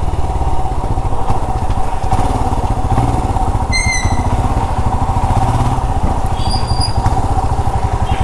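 Royal Enfield Himalayan's 411 cc air-cooled single-cylinder engine running at low revs with an even pulsing beat as the motorcycle rolls slowly to a stop, heard from the rider's seat.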